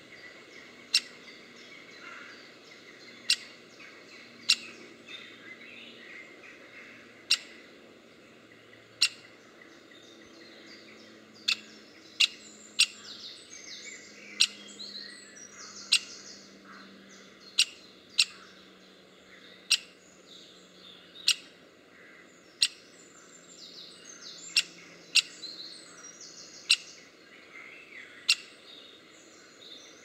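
Great spotted woodpecker giving sharp single 'kik' calls, irregularly about one every second or two. Other woodland birds sing faintly behind them.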